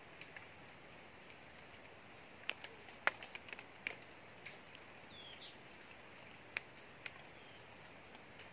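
Faint forest ambience: a steady hiss, scattered sharp ticks and rustles in dry leaf litter, and a short high descending chirp or two from a small bird about five seconds in.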